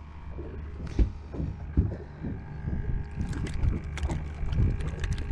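A freshly caught spotted seatrout swung aboard on the line and handled, with its popping-cork rig hanging below: a couple of sharp knocks about a second and two seconds in, then a run of quick rattling clicks from about three seconds on, over a low steady rumble.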